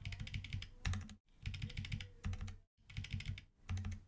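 Typing on a computer keyboard: quick runs of keystrokes broken by two short pauses.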